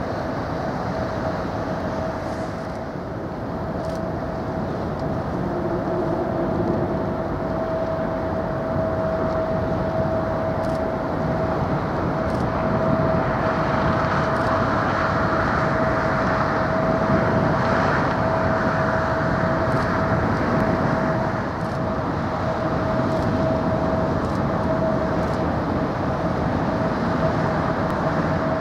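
Steady mechanical drone with a constant mid-pitched hum running through it, a little louder through the middle.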